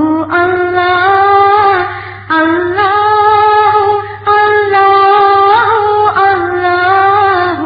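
A solo voice singing an Arabic nasheed in long held, slightly wavering notes, about four phrases with short breaths between them, over a steady low hum.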